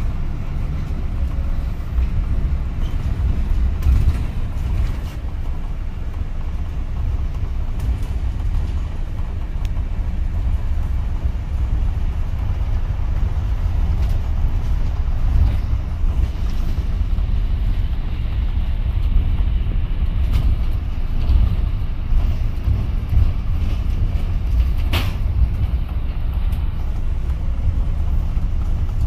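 Double-decker bus in motion heard from inside on the upper deck: a steady low engine and road rumble. Near the end there is a single sharp click.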